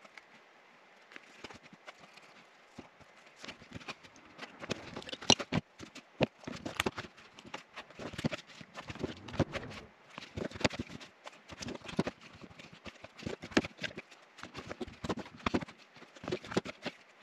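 Irregular clicks, taps and light knocks of hand-stitching a leather knife sheath on a worktable, as the leather and small tools are handled, picked up and set down. Sparse at first, busier from about four seconds in.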